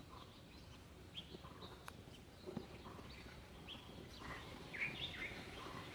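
Wild birds chirping and calling in short, scattered notes, with a busier flurry about four to five seconds in, over faint outdoor background noise.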